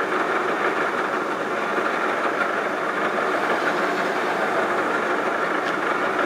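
Vertical milling machine face-milling a metal block with a rose cutter: the spinning cutter scrapes steadily across the surface over the running of the spindle and motor.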